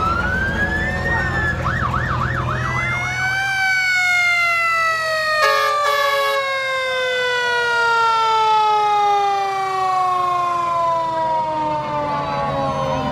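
Vintage fire engine's siren: it rises in pitch, warbles rapidly for a couple of seconds, then falls slowly and steadily in a long wind-down. A brief steady blast cuts in about five seconds in, over the low rumble of the truck's engine early on.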